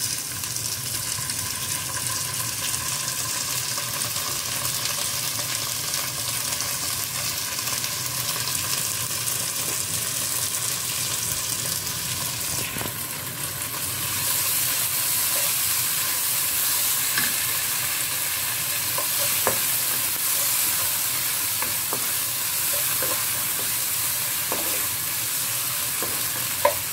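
Shallots, garlic, ginger and curry paste frying in oil in a nonstick wok, a steady sizzle, stirred with a wooden spatula. The sizzle grows louder about halfway through, and there is one sharp knock near the end.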